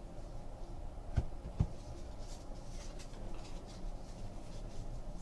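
Trading cards and packs being handled: two soft taps a little over a second in, then faint rustling and sliding of cards.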